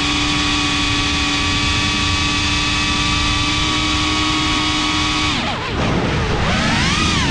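Geprc Cinelog 35 cinewhoop's brushless motors and ducted propellers whining at a steady pitch in cruise. About five seconds in the whine drops steeply as the throttle is cut for a dive, then climbs back as power comes in again.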